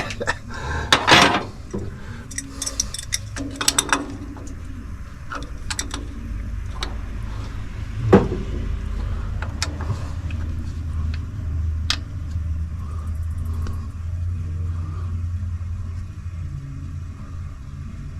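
Scattered sharp metallic clicks and knocks of hand tools against a Holley carburettor, with the loudest knock about eight seconds in, over a steady low hum.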